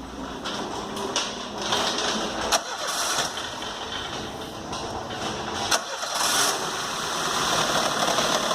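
Peugeot 206 engine cranked by the starter and catching, then running roughly with a misfire, together with a noise from the accessory-belt side that the mechanic first takes for the alternator. A sharp click about two and a half seconds in.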